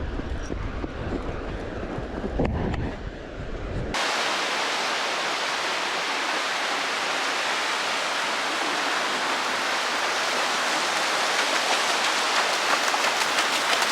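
A low rumbling noise, then a sudden switch about four seconds in to a steady rushing hiss of water on the beach.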